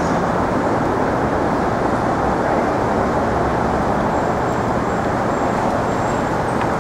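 Steady city traffic noise: a dense, even wash of road noise with no single event standing out.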